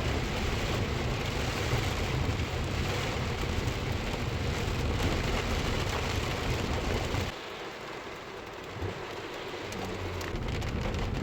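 Heavy rain falling steadily, a dense hiss with a low rumble beneath. About seven seconds in it drops suddenly to a quieter level, then builds back up near the end.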